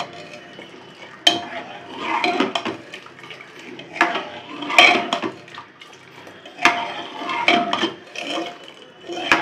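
Metal ladle stirring thin dal in an aluminium pressure-cooker pot: the liquid sloshes and swishes, and the ladle clinks sharply against the pot's side about five times.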